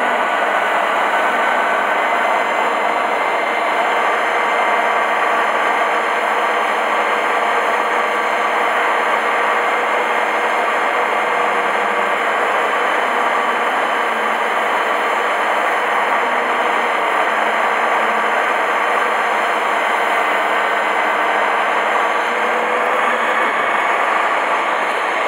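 Honda Hornet 250 motorcycle's four-cylinder engine running steadily on board, under a steady rush of wind and road noise.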